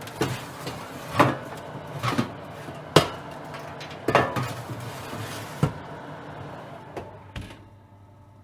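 Oven being handled: a series of sharp clanks and knocks, about ten over several seconds, over a steady low hum that fades away near the end.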